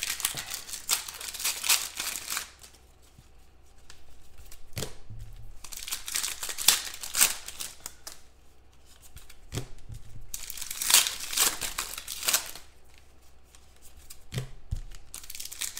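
Trading card pack wrappers being torn open and crinkled by hand, in four spells of rustling with quieter pauses between them.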